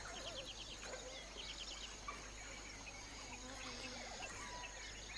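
Bush ambience: insects drone on one high note while many birds chirp and trill.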